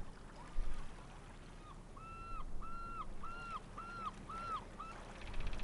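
A series of about six short pitched animal calls, each rising then falling, a little under a second apart, over a faint steady background.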